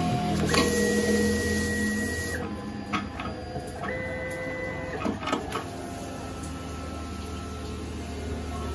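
Rhinotec cutting plotter at work cutting sticker sheets: its motors give steady whining tones that switch pitch every second or two as the head and sheet move, over a low hum, with a few sharp clicks.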